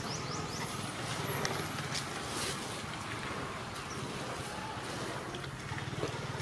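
Steady low hum under an even outdoor background hiss, with no clear animal calls standing out.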